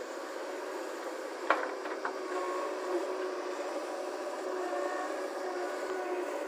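Steady mechanical hum made of several even tones, with two faint clicks about one and a half and two seconds in.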